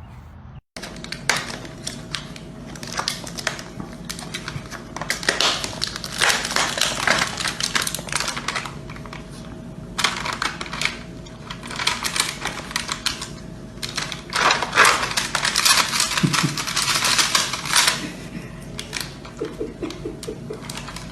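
Rapid, irregular clicking and clattering, coming in runs with short pauses, over a faint steady hum.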